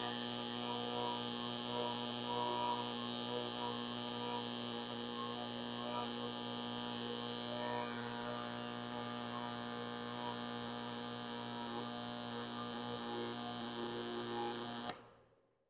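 Robotic MIG welding arc at a Yaskawa HC10 collaborative robot's torch, laying a weld: a steady humming buzz that cuts off suddenly about 15 seconds in as the arc turns off at the end of the bead.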